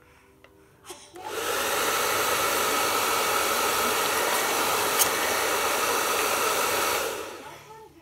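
Handheld hair dryer switched on about a second in, blowing steadily for about six seconds, then switched off and winding down. A brief click sounds midway.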